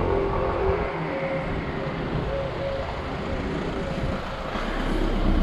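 Street traffic heard from a moving bicycle: a motor vehicle's engine hum fading in the first second, a steady rushing noise, and another engine building near the end.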